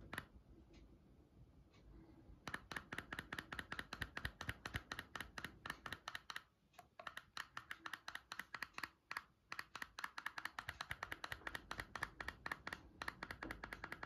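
Rapid, faint plastic clicking of a soundbar remote's volume button pressed over and over, several clicks a second, starting about two seconds in.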